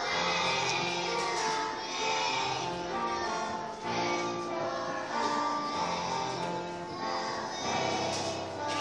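A class of schoolchildren singing together as a choir, in held notes and phrases that follow one after another.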